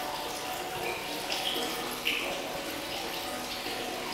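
Steady rain falling, an even hiss of water, with two short higher-pitched sounds, one a little after a second in and one about two seconds in.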